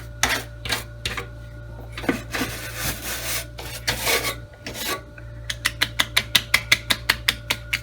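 Brush scrubbing caked dust off the back of a refrigerator. At first the strokes come irregularly, then in a quick even run of about six a second near the end.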